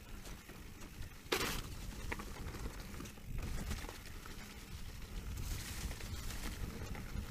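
Specialized Turbo Levo e-mountain bike rolling down a dirt singletrack: steady rumble of tyres and frame over the rough ground. A sudden loud swish about a second and a half in, and a brighter hiss a little past the middle.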